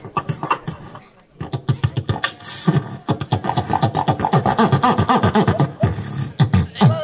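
A boy beatboxing into a handheld microphone: a fast, even beat of mouth-made clicks and snares over repeated falling bass sweeps. It dips briefly about a second in, then picks up into a dense, steady rhythm.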